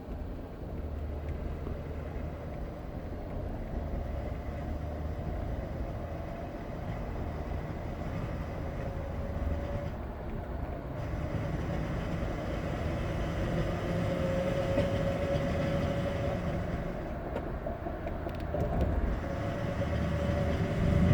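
2017 Ford F-150 3.5 EcoBoost pickup driving under throttle, with a wavering mid-pitched grinding drone from the front end over low road rumble, growing louder toward the end. It is the integrated wheel end (IWE) grind of the 4WD front hubs, which the owner traces to lost hub vacuum; a new vacuum check valve cured it for a while.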